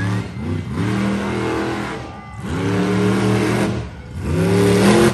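Monster truck engine revving hard in three surges, each rising in pitch, holding, then dropping away.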